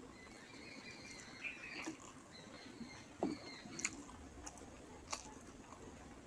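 A person chewing a mouthful of rice and fish curry, with a few sharp wet mouth clicks and smacks in the second half. Faint bird calls sound in the background during the first couple of seconds.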